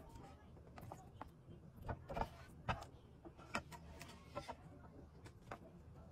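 A spatula scraping and tapping in a nonstick frying pan as crinkle-cut fries are scooped out of the oil onto a plate: a scatter of short clicks and scrapes over a low steady hum.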